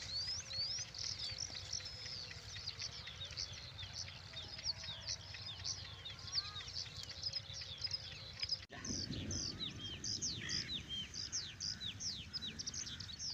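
Many small birds chirping and twittering: a dense, continuous stream of short, quick whistled notes, over a low rumble of outdoor noise that grows stronger after a brief break about two-thirds of the way through.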